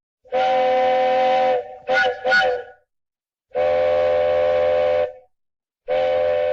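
Steam train chime whistle sounding a steady chord in separate blasts: one long blast, two short toots, another long blast, and a further long blast starting near the end.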